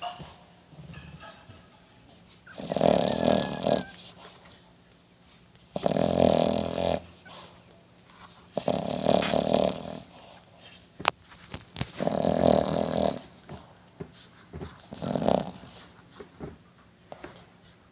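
Shih tzu snoring in its sleep: a rough snore about every three seconds, five in all, each lasting about a second. There is one short click a little after the middle.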